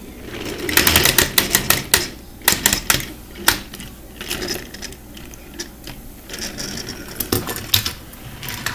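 Plastic toy trains being pushed and handled on a tabletop: irregular clicks and clatter from the wheels and couplings, thick for the first few seconds and then scattered.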